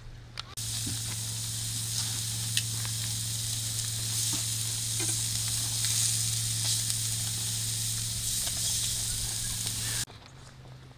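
Beef steaks sizzling on a ridged grill pan: a loud, even hiss with a steady low hum under it and a few faint clicks. It cuts in abruptly about half a second in and cuts off just before the end.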